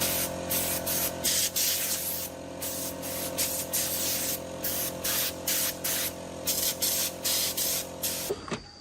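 Compressed-air spray gun hissing in short, rapid bursts over the steady hum of a running motor, likely a compressor; both stop suddenly near the end.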